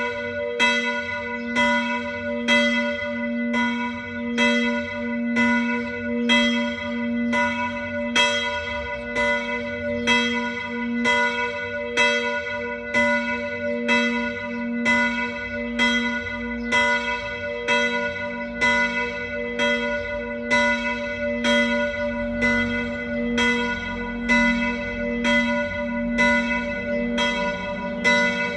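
Church bells ringing together in a continuous peal, strikes about twice a second overlapping into a sustained, humming chord.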